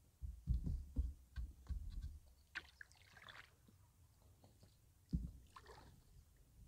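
Paddling a canoe: several dull knocks in the first two seconds and another about five seconds in, with light water splashes and drips in between.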